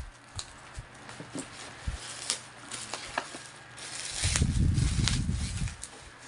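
A black bubble-wrap parcel handled and turned over on a table: scattered crinkles and crackles of the plastic wrapping, with a louder low rumble of handling about four seconds in that lasts over a second.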